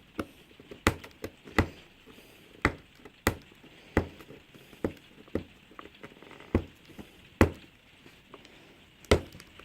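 Cardboard laptop box being handled and worked open: irregular sharp knocks and taps, a dozen or so, with the loudest about seven seconds in.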